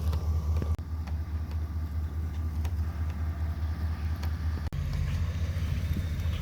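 A vehicle engine running with a steady low drone. The sound changes abruptly about two-thirds of the way through.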